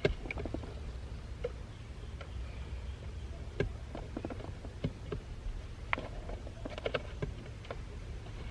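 Irregular light clicks and taps of a hand tool and fingers working at a screw behind the steering wheel, over a low steady hum.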